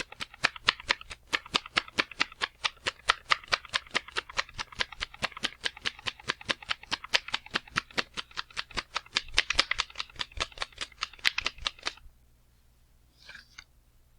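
A rapid, even series of sharp slams, about five or six a second, that stops abruptly near the end, followed by a couple of faint rustles.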